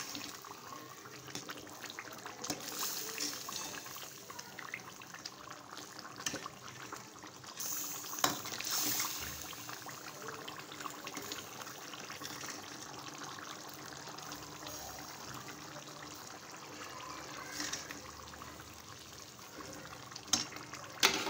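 Beef korma gravy simmering and bubbling in its pot, a steady fine crackle, as a ladle is stirred through it. A sharp knock of the ladle about eight seconds in and two more near the end.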